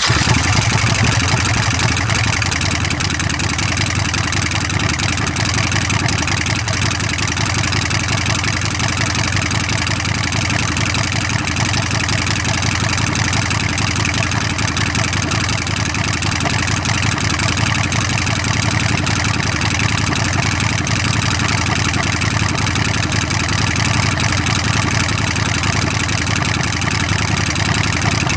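Harley-Davidson Sportster Nightster's air-cooled V-twin running steadily, picked up by a helmet microphone.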